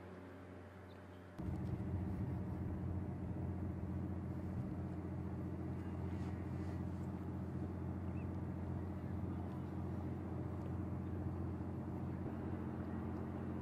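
Car engine idling, a steady low hum that steps up suddenly in level about a second and a half in and then holds even.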